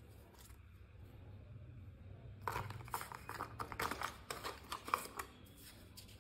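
Paper cards and a small cardboard box rustling and crinkling as they are handled: a cluster of crisp rustles and light taps from about two and a half seconds in to about five seconds.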